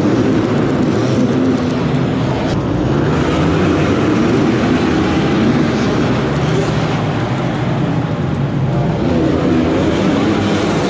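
Several pit bike engines running and revving on a dirt track, their pitch rising and falling as the riders accelerate, jump and slow again.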